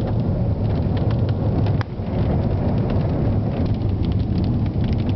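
Steady road and engine rumble inside a moving car's cabin, with raindrops ticking on the windshield and roof through a thunderstorm.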